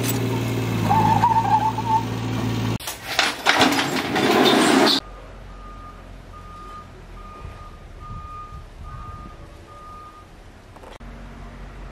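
A heavy vehicle's engine running with a steady low hum, then a loud rush of hiss for about two seconds that cuts off abruptly. After that comes a faint series of about six short, evenly spaced high electronic beeps.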